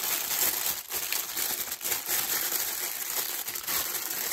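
Thin clear plastic packaging bag crinkling and crackling continuously as hands handle it and pick at it, trying to get it open.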